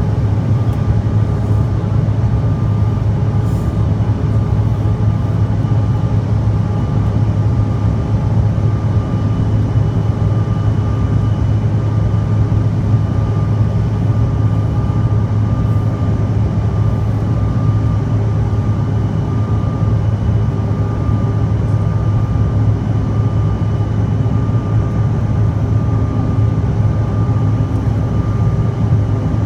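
Cabin noise of a Bombardier CRJ-900 airliner with its twin rear-mounted turbofan engines under steady power: a constant drone with a strong low hum and a few thin, steady whining tones above it.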